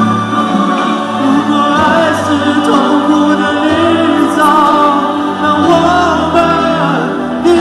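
A man singing a pop ballad into a handheld microphone over instrumental accompaniment, amplified through the stage sound system.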